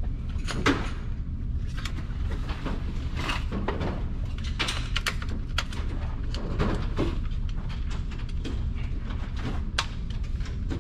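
Ruger 10/22 rifle being handled: scattered sharp clicks and knocks from its magazine and action, over a steady low hum.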